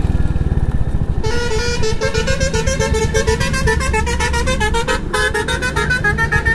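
Royal Enfield Hunter 350's single-cylinder engine idling after pulling over, with a fast tune of quick stepped high notes starting about a second in and running on, and one sharp click about five seconds in.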